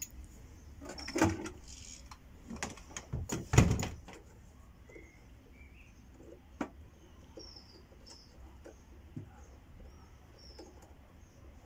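A cabinet drawer on metal ball-bearing slides being handled, with a cluster of knocks and rattles as a corded power tool is lifted out of it, the loudest about three and a half seconds in, then a single click a few seconds later. Faint bird chirps run throughout.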